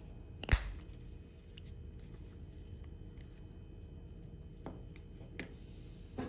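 Plastic key fob shell being handled and pressed back together: one sharp click about half a second in, then a few lighter clicks and taps near the end.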